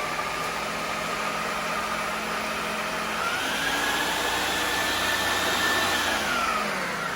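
Electric food processor running, its blades chopping vegetables fine; the motor whine steps up in pitch about three seconds in and winds down near the end.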